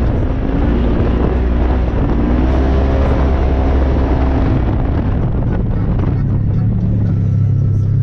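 An off-road vehicle's engine running steadily, with wind noise on the microphone; the engine note rises about five seconds in.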